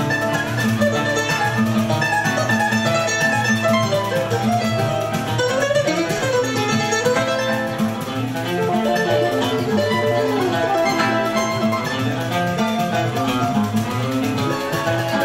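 Choro played live on mandolin and acoustic guitar: a quick melody of plucked notes running up and down over the guitar's bass line and chords.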